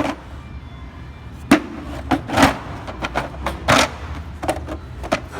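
Hand tools being handled in a toolbox drawer: a string of irregular clinks and knocks, about eight in all, the loudest about a second and a half in and near the middle, over a low steady hum.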